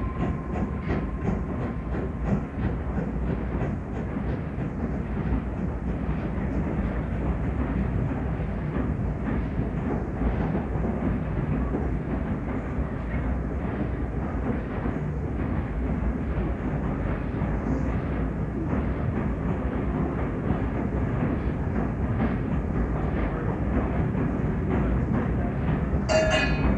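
Steam train running with a steady, heavy rumble. A whistle starts sounding just before the end.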